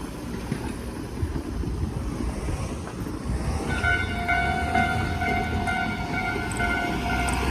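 Keikyu train running past at a level crossing: a steady low rumble throughout, joined about three and a half seconds in by a steady high-pitched whine that holds to the end.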